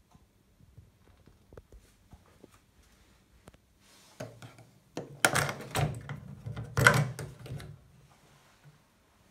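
Hands working a Hepco & Becker Xplorer aluminium top box's lid catch and lid: a few light ticks, then a cluster of knocks and rustling with two sharp clacks, about five and seven seconds in, as the lid is released.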